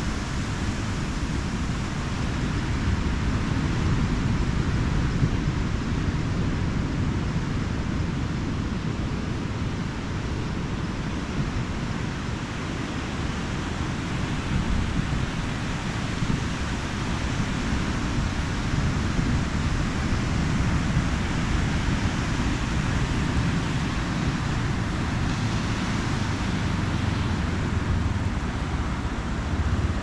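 Ocean surf breaking and washing up the beach as a steady, unbroken noise, with a low wind rumble on the microphone underneath.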